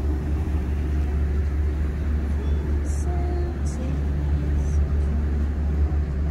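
Steady low drone of a cruise boat's engine while under way, with faint voices of people on deck.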